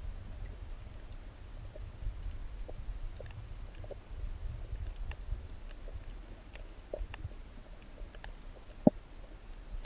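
Underwater reef ambience heard through the camera: a steady low rumble of moving water with scattered faint sharp clicks, and one louder click near the end.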